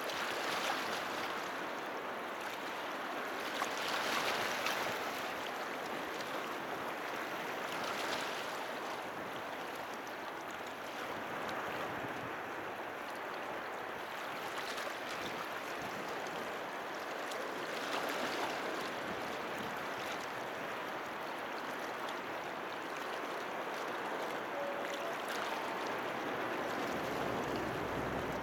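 Small waves washing against the shore, the rush of water swelling and fading every few seconds.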